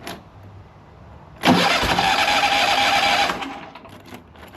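Toro Titan Max zero-turn mower's engine cranking on its electric starter for about two seconds, then stopping without the engine catching. It cranks but won't start, a fault the owner traces to a choke cable that does not move the choke.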